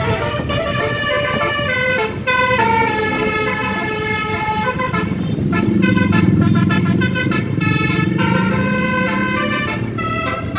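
Bus telolet horn, a set of electrically switched air trumpets, playing a quick melody of shifting notes over the rumble of the bus engine, which swells about halfway through.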